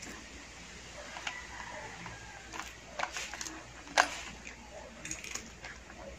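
A cat chewing and crunching dry, crispy junk-food snacks: irregular crisp crunches and crackles, the sharpest about four seconds in.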